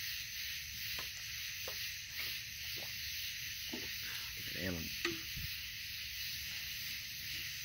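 A few faint, distant fireworks pops over a steady high hiss, the clearest pop about five seconds in.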